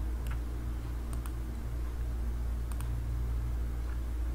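Faint computer-mouse clicks, several in quick pairs, over a steady low hum of background noise.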